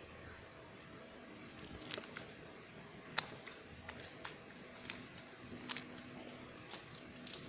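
Glitter slime being squeezed and stretched by hand, giving scattered small clicks and sticky pops.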